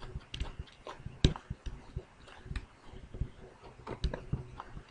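Stylus tapping and scratching on a drawing tablet as short sketch strokes are made: quick, irregular clicks, several a second.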